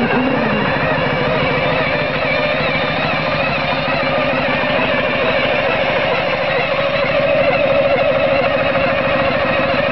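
1950 Vincent Black Lightning racing motorcycle running steadily on a rolling road, the rollers spinning its rear wheel to start it because it has no kick or electric start. The sound is a dense, fast, even mechanical beat that swells slightly past the middle.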